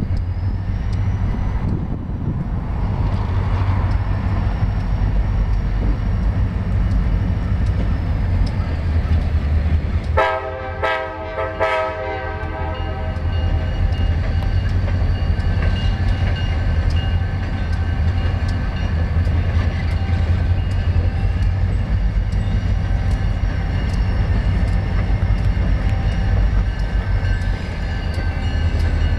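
CSX diesel locomotives rumbling steadily in the rail yard. A locomotive horn sounds for two to three seconds about ten seconds in.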